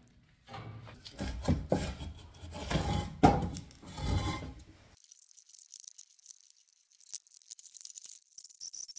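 Scraping, knocking and rattling of building work, with irregular knocks and scrapes for about the first five seconds. After that it suddenly drops to a faint, high, rattling hiss.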